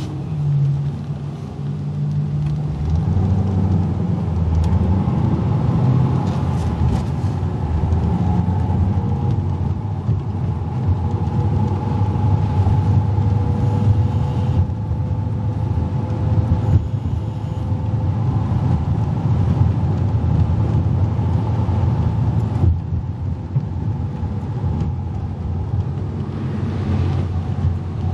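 Car driving along a road: a steady rumble of road and engine noise, with a faint steady whine through the middle.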